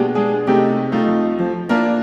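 Background piano music: notes and chords struck at an even pace, about two a second.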